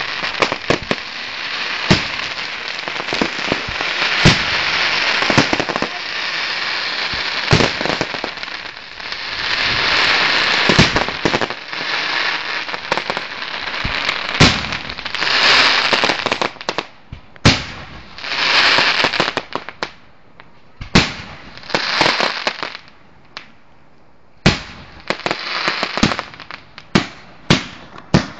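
Aerial fireworks display: shells bursting with sharp bangs, mixed with stretches of dense hiss lasting about a second each. The sound is near-continuous at first, then separate bangs come apart, with a quick run of them near the end.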